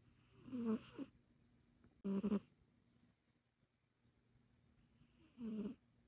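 A sleeping cat snoring: three short snores, the first about half a second in, the next around two seconds, and the last near the end.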